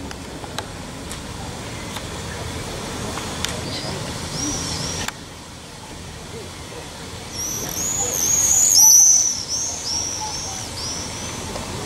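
A songbird sings a run of quick, high, arching chirps over a low steady rumble. The chirps start faintly a few seconds in, grow loud in the second half and are the loudest sound. A few sharp clicks come in the first half.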